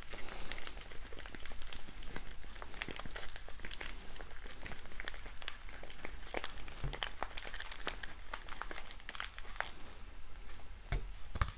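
Crinkling and crackling of a foil-laminate MRE retort pouch as it is squeezed and worked with a plastic spoon to push out the ham and chicken loaf, with two soft thumps near the end.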